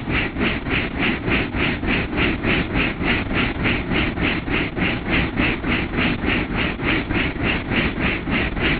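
Helicopter in flight heard from inside the cabin: steady engine and rotor noise with a regular pulsing beat about four times a second.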